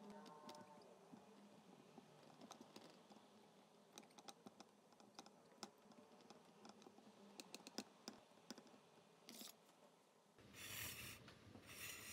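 Faint, scattered clicks and light taps of tomatoes and fingers against a glass jar as the tomatoes are pressed in on top of packed vegetables. About ten seconds in come three short, louder bursts of rubbing noise.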